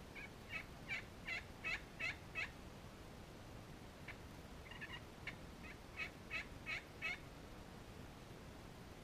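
Turkey yelping: two runs of short, evenly spaced yelps, about three a second, the first right at the start and the second from about four seconds in.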